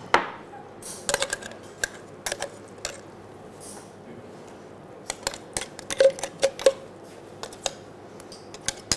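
A metal spoon clinking and tapping against a glass while pesto is scraped out onto pasta in a frying pan: scattered short clicks, with a few ringing clinks about two-thirds of the way through.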